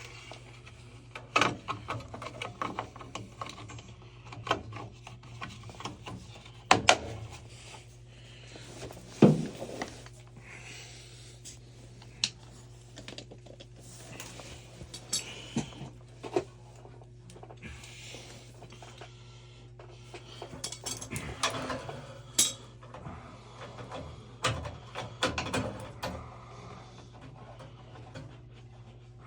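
Metal parts of a gas water heater's burner assembly clinking, scraping and knocking as they are fitted back together by hand: irregular clinks and rattles with a few sharper knocks, over a steady low hum.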